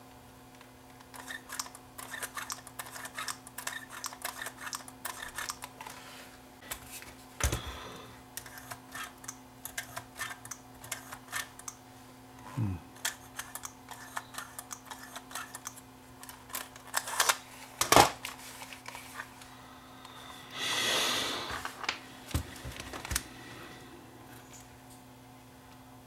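Sheet-metal cassette holder of a Sony CCD-TRV128 Hi8 camcorder being pressed and worked by hand, giving many small clicks and rattles, with a sharper click about two-thirds of the way through and a short rustle soon after. A faint steady hum sits underneath.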